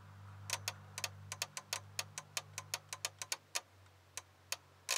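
Relay in a 2000 Ford F250 Super Duty clicking on and off rapidly and irregularly, about six clicks a second, thinning out near the end, as the number 4 fuse is wiggled in its socket. The fuse socket has a short, so the dome light circuit makes and breaks.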